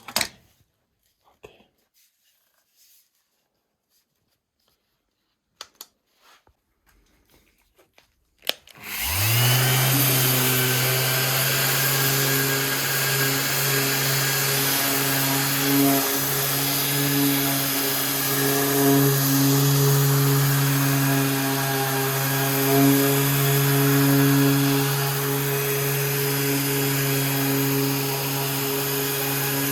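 A few faint clicks and knocks, then about nine seconds in an electric power tool's motor switches on, spins up quickly and runs at a steady pitch.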